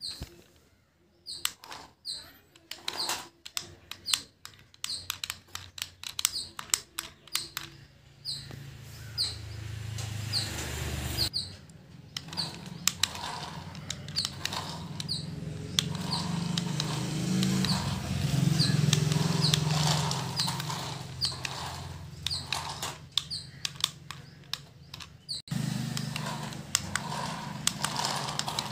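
Small plastic toy cars running on a concrete floor: a low electric-motor whir that builds and runs for most of the second half, over many small clicks and repeated short high chirps.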